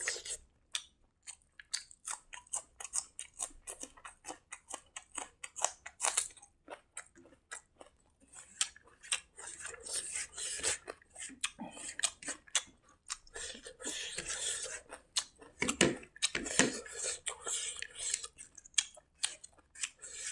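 Close-miked eating by hand: chewing with many quick, irregular wet mouth clicks and smacks, along with fingers mixing and scooping rice on a plate.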